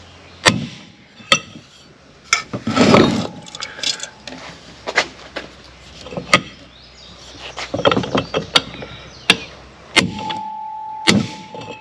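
Hammer striking the end of a steel pipe used as a driver, tapping a new driveshaft center support (carrier) bearing down onto the shaft. About a dozen sharp metallic knocks come at irregular intervals. After a couple of them the pipe rings briefly.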